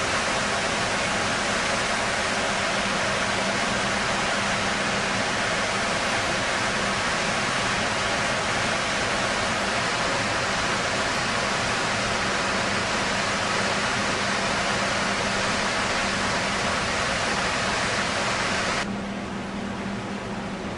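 Steady loud rushing noise with a low steady hum underneath, dropping somewhat in level near the end.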